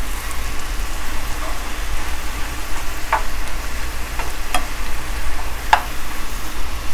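Sliced mushrooms sizzling in butter in a skillet as they cook down, stirred with a spoon that knocks against the pan a few times.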